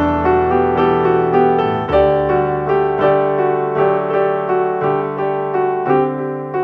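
Background piano music: a steady run of notes over held bass notes.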